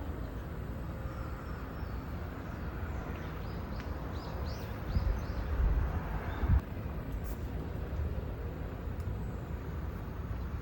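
Outdoor ambience: a steady low rumble, with a few short bird chirps around the middle and a brief low thump about six and a half seconds in.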